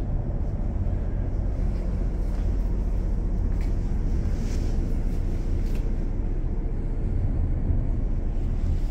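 A steady low rumble of running machinery.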